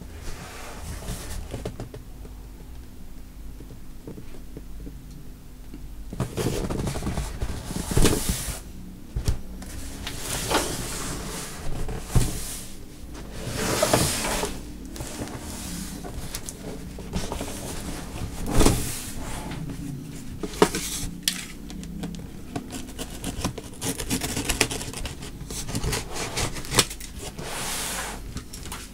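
A large cardboard box holding a computer case being handled and turned over, starting about six seconds in: cardboard rubbing and scraping, with several sharp knocks and bumps.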